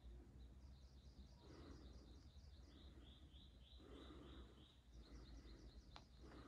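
Faint bird song: a small bird repeating runs of quick, high chirps, about four or five a second, three runs in a row.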